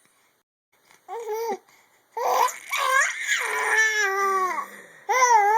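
A baby babbling in high-pitched calls: a short one about a second in, then a longer run of calls falling in pitch, and another starting near the end.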